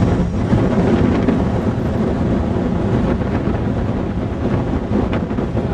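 Strong wind buffeting the microphone: a loud, steady, rumbling rush.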